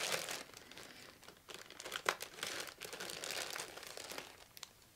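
Figurine packaging being unwrapped by hand: irregular crinkling and rustling with a few sharper clicks, the sharpest about two seconds in.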